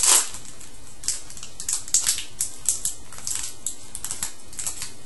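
A 2013-14 SPx hockey card pack's shiny wrapper being torn open and crinkled, then the cards handled. Irregular sharp crackles, loudest at the very start.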